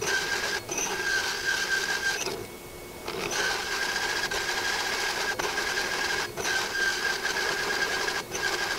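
Drill press slowly grinding a large hole saw through quarter-inch steel plate: a steady grinding with a thin high whine, the press short of torque for so large a bit. The whine drops out for about a second a little before the middle, and a few faint ticks sound.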